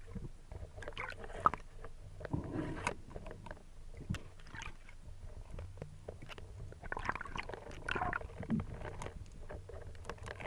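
Muffled underwater sloshing and gurgling with scattered clicks and knocks as a band-powered speargun is reloaded.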